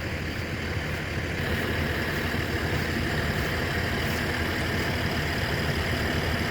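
Bucket truck's diesel engine idling steadily, with a hiss that grows a little stronger about a second and a half in.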